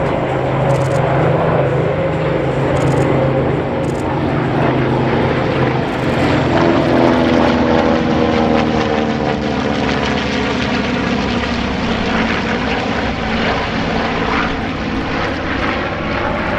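Mass formation of World War II piston-engined warbirds flying over, their propeller engines droning together. The engine pitch falls from about six to eleven seconds in as the formation passes.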